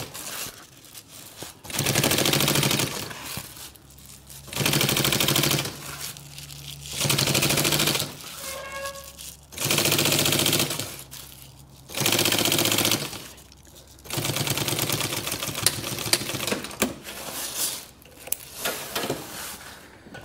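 Sewing machine stitching hook Velcro onto a canvas awning wall in short runs of about a second each, starting again every two seconds or so, with one longer run of about three and a half seconds past the middle.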